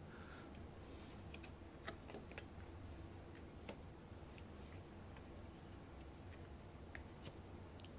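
Faint handling of tarot cards: a few soft clicks and taps, scattered and irregular, as cards are laid down and turned over, over a low steady hum.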